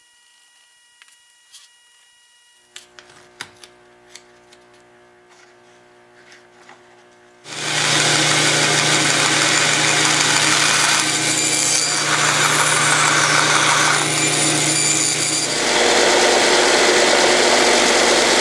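A bandsaw cutting a small piece of teak: a loud, steady noise that starts about seven seconds in and lasts about eight seconds. A stationary sander then grinds the piece's edge for about three seconds. Before the saw there are only faint small taps.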